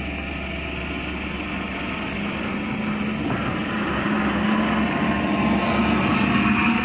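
1/10 scale RC trucks driving over gravel: a steady motor and drivetrain whine over the crunch of tyres on loose stones, growing louder toward the end as a truck comes close.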